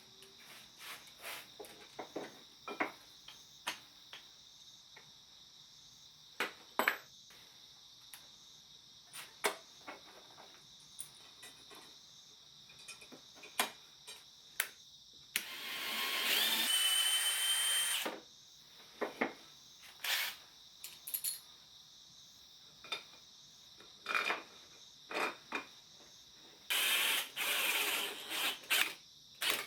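Workshop handling noises, with scattered short knocks and clicks of parts being set down and worked. Twice a power tool, drill-like, runs for about two and a half seconds, once about halfway through and again near the end. A steady high-pitched chirring continues underneath.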